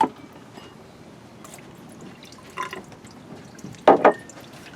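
Coconut water dripping and trickling from a drilled coconut into a glass, with a few short sharp sounds, the loudest a quick double knock near the end.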